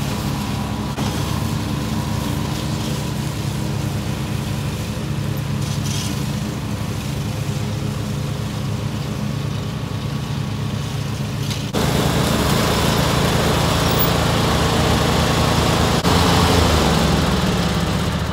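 Engine of a Can-Am side-by-side converted into a tracked mower, running at a steady pitch while it cuts tall pasture grass. About two-thirds of the way through the sound suddenly gets louder and closer. Near the end the engine note briefly rises and falls.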